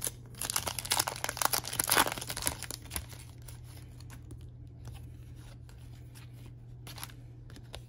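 Foil trading-card pack wrapper being torn open and crinkled, loud and crackly for the first two and a half seconds, then softer rustling and light clicks as the cards are slid out and handled.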